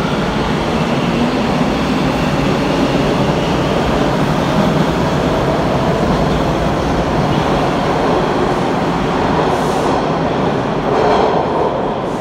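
Bombardier T1 subway train pulling out of an underground station, a steady loud rumble of wheels on rail as the cars run past. There is a faint rising whine in the first second as it picks up speed, and a brief louder burst about eleven seconds in before the sound falls away.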